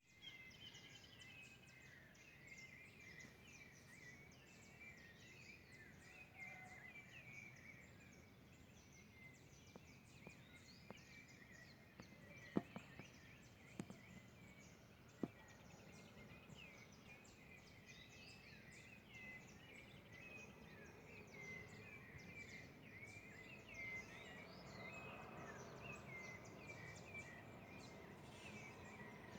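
Several small birds chirping and twittering faintly in a morning chorus, many short calls overlapping without a break. Three sharp clicks come about halfway through.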